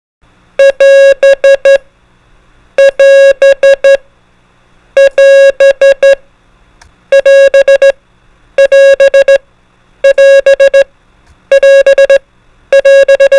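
Morse code prosign AS, 'wait' (di-dah-di-di-dit), sent as a steady buzzy electronic beep at one pitch. The group is keyed eight times in a row, with a short pause between repeats.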